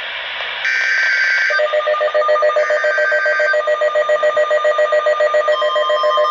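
Emergency Alert System tones. Short two-tone digital data bursts (the SAME header) come first, and about a second and a half in a rapidly pulsing, ringing multi-tone attention signal starts. A steady higher tone joins it near the end.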